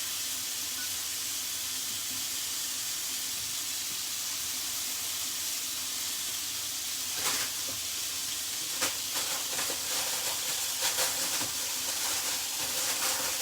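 Chicken breast searing in a hot frying pan: a steady sizzle, with sharper crackles and pops from about halfway.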